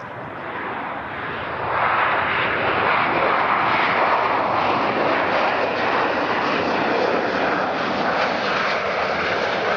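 Boeing 757 freighter's twin jet engines rolling along the runway: a broad jet rush that grows louder about two seconds in, then holds steady and loud.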